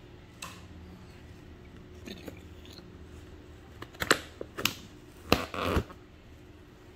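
Food containers being handled: a few sharp clicks and a short crinkly rustle, a little after halfway, over a quiet room.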